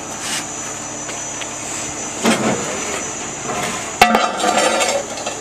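An aerial fire truck running steadily, and about four seconds in a sharp clank with a short rattle as a jack pad is dropped onto the pavement under an outrigger foot.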